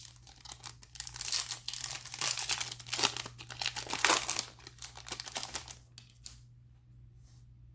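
Crinkling and tearing of a trading-card pack wrapper as a pack of Upper Deck Ice hockey cards is torn open, a dense crackle that dies away about six seconds in.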